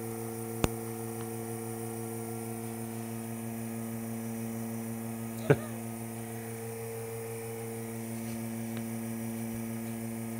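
Vacuum pump for a vacuum clamping jig running with a steady hum while holding vacuum. Two light knocks, one under a second in and one about halfway through, as MDF blanks are handled on the jig.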